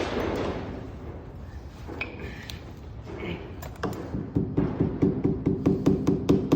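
A hand-worked mechanism clicking and squeaking in a fast, even rhythm, about six strokes a second, starting about four seconds in after some handling noise.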